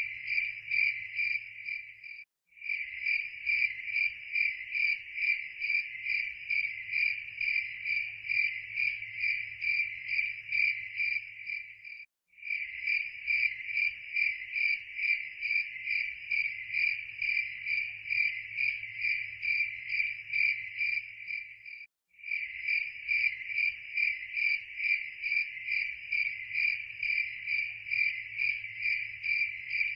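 Crickets chirping in a rapid, even, high-pitched pulse that breaks off for an instant about every ten seconds.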